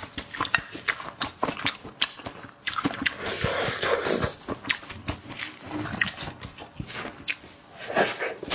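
Close-miked eating: wet chewing and lip smacks, several a second, with a longer sucking, slurping stretch about three seconds in.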